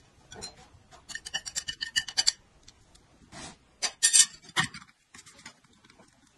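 Close-up scratchy clicking and scraping of tableware being handled: a porcelain plate and chopsticks. Quick runs of small clicks are followed by a few louder knocks about four seconds in.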